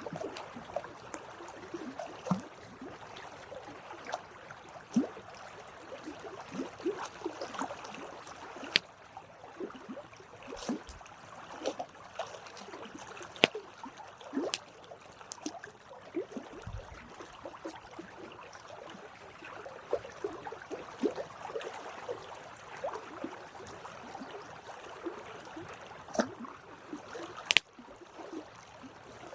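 Campfire burning: wood crackling with irregular small pops and snaps over a soft hiss, with a few sharper pops, the loudest about 13 and 27 seconds in.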